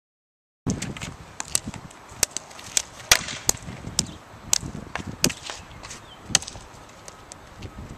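Street hockey ball bounced and tapped on the blade of a wooden hockey stick: a string of sharp, irregular knocks, starting about a second in.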